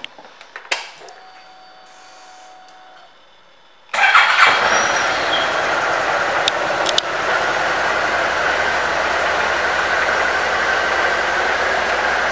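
Honda DN-01's 680 cc V-twin engine: a click or two, then about four seconds in it starts abruptly and settles into a steady idle.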